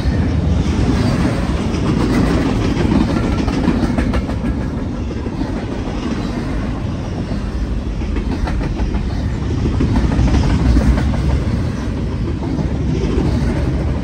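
BNSF double-stack intermodal freight train's container well cars rolling past close by: a steady noise of steel wheels on rail, with clicking as wheels cross rail joints.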